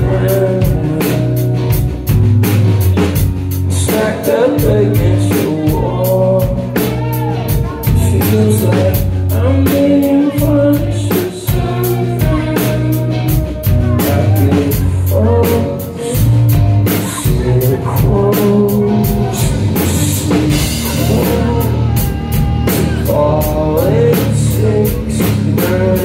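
Rock band playing live, with electric guitars, bass and drum kit and a man singing lead over them.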